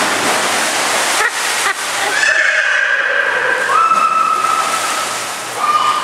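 A big splash as a person jumps into a swimming pool, then water churning and sloshing. From about two seconds in, long high-pitched cries are held over the water noise.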